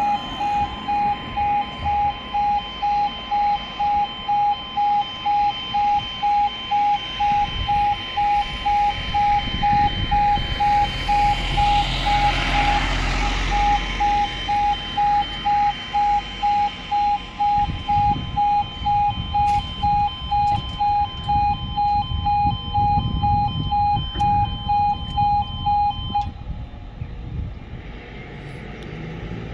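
Level crossing warning alarm beeping: a single steady-pitched tone pulsing about twice a second while the barriers lower, stopping near the end once they are down. A swell of rushing road noise rises and fades about twelve seconds in.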